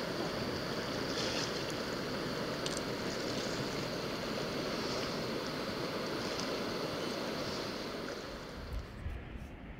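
River water rushing over the rapids at a dike, a steady rush that eases slightly near the end, where a few low thumps come through.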